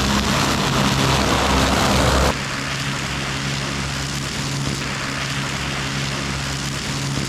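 Skid steer engine and rotary brush cutter running steadily, a constant machine hum under a rushing noise. For the first two seconds a louder rush of brush being cut, which cuts off abruptly.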